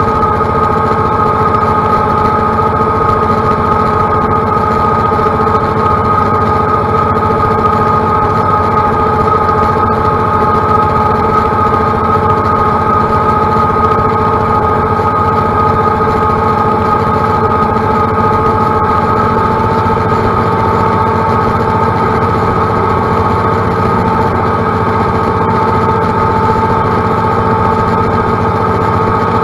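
Green loader tractor's engine running steadily while cutting tall grass, a constant engine note with a steady whine over it.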